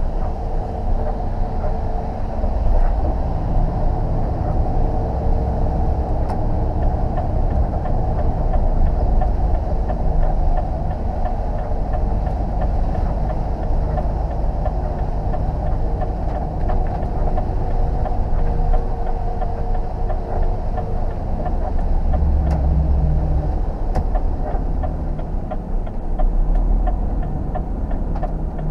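Steady drone of a lorry's diesel engine and its tyres on a wet road, heard from inside the cab.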